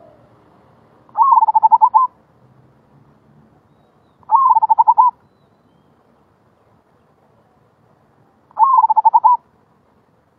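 Zebra dove (merbok) singing its rolling 'gulung' coo: three rapid, trilled coos, each just under a second long, a few seconds apart.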